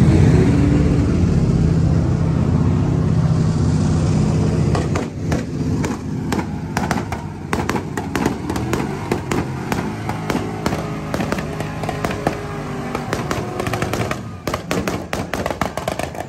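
A car engine revved hard and held high for about four seconds, then a rapid, irregular run of sharp cracks and pops with crowd voices mixed in.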